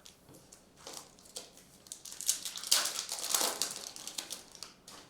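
Trading-card packs and cards being handled: a dense crinkling and rustling of wrappers and cards that swells about two seconds in and fades near the end.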